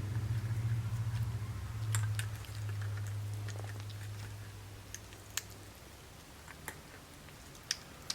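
A baby squirrel monkey chewing sweet corn kernels: a few sharp, scattered clicks and crunches. A low steady hum underneath fades out about six seconds in.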